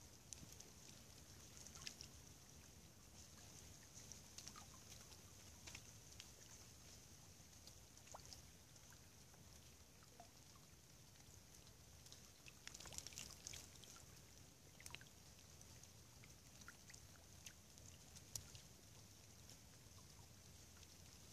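Faint trickling of a slow river, with scattered soft ticks and drips, and a small cluster of them a little past halfway.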